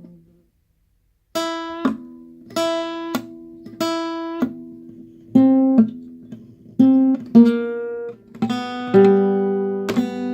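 Acoustic guitar strumming chords, starting after a short silence about a second in, one chord roughly every second, each ringing out before the next.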